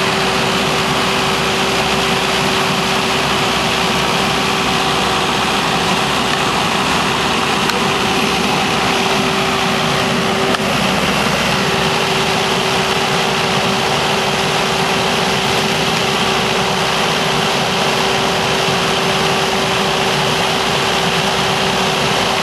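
An engine idling steadily, with a constant hum and no change in speed.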